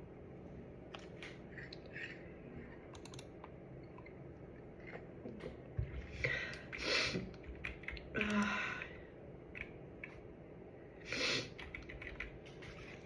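A person with a cold breathing hard and sniffing, with three breathy bursts about six, eight and eleven seconds in, the middle one with a short voiced catch. Small clicks come and go between them.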